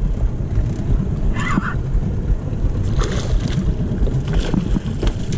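Steady wind rumble on the microphone over a small boat's outboard engine running and water washing along the hull.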